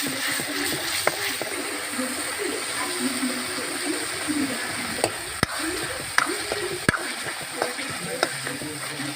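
Chicken and masala frying in a pan with a steady sizzle, stirred with a spoon that scrapes and clinks against the pan now and then, sharpest about 5 and 7 seconds in.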